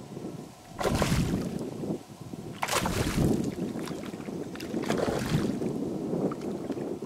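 Wind and water noise on open water, rising in surges about every two seconds, with no words spoken.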